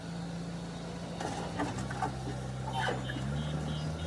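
JCB backhoe loader's diesel engine running steadily, its pitch stepping down and up as the machine works, with some metallic clatter and knocks in the middle. A pulsing high beep starts near the end.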